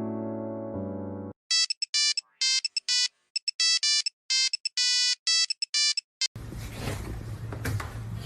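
Electronic phone ringtone: a quick pattern of high, clean beeping tones that starts about a second and a half in and plays for nearly five seconds. Before it, piano music stops short; near the end the ringtone cuts off into room noise.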